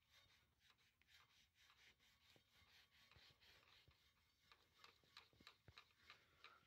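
Faint rubbing and scuffing of a rag wiping the dusty metal cover inside a Pioneer VSX-3000 stereo receiver, with scattered soft ticks.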